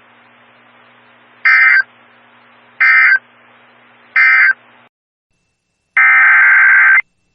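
Three short bursts of EAS/SAME digital data tones from a NOAA Weather Radio broadcast, about 1.3 seconds apart over faint radio hiss. This is the end-of-message code closing the alert. After a brief gap, one longer burst of the same data tone lasts about a second and cuts off sharply.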